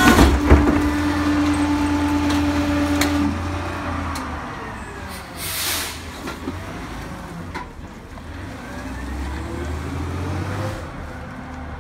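Pak-Mor rear-loader garbage truck: a couple of metal clanks at the start, then the engine running with a steady hydraulic whine that stops about three seconds in. A short air-brake hiss comes about six seconds in, and the engine runs on as the truck moves off.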